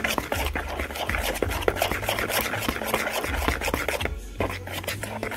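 Thick cornbread batter being stirred by hand in a bowl, the utensil scraping and clicking against the bowl in quick, irregular strokes, with a brief pause about four seconds in.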